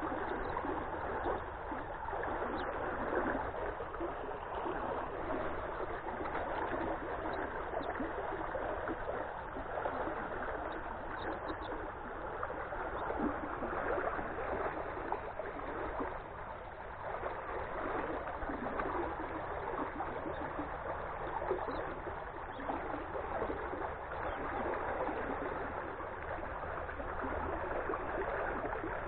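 Floodwater rushing steadily over and around a partly submerged pipe in a creek.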